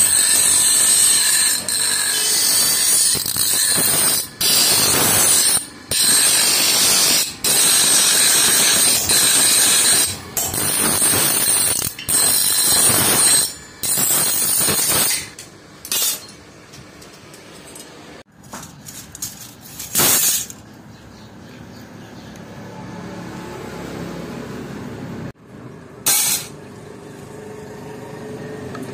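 Electric power tool working steel in repeated passes of one to four seconds with short breaks, with a steady high whine running through it. After the passes stop it is much quieter, with a few single sharp knocks.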